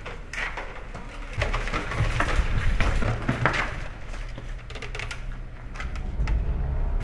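A low rumble under a run of short clicks and knocks, busiest between about one and four seconds in.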